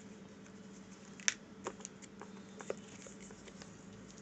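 A few light clicks and taps as the phone's retail box and its contents are handled, the sharpest about a second in, over a steady low hum.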